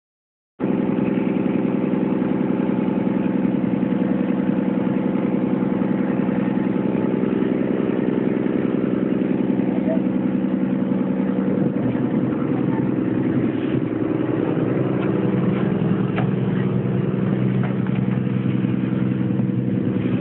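A small boat's engine running steadily under way, a constant drone with a hiss over it; the pitch wavers slightly about halfway through.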